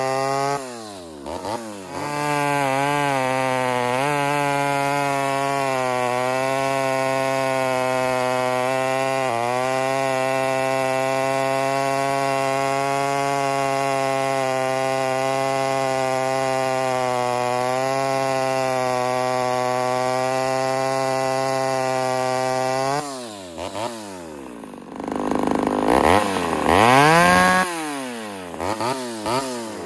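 Ported Homelite Super XL Auto two-stroke chainsaw held at full throttle, its pitch dipping and recovering a few times near the start, then running steady for about twenty seconds. It then drops off and is revved up and down several times near the end.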